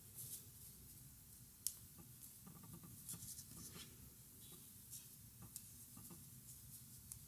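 Faint rustling of cotton yarn and soft clicks of a crochet hook as hands work the yarn, a sharper single click about a second and a half in and a run of scratchy rustles in the middle.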